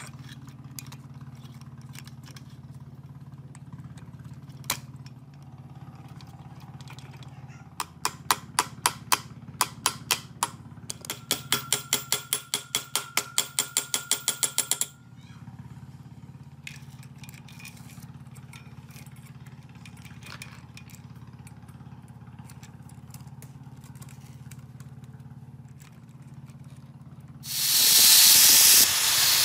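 A run of sharp, ringing hammer taps on a steel spanner against a bicycle's bottom bracket cup, about two dozen of them, quickening partway through. Near the end an angle grinder starts and cuts through a bicycle chain, much louder than the taps. A steady low hum sits underneath.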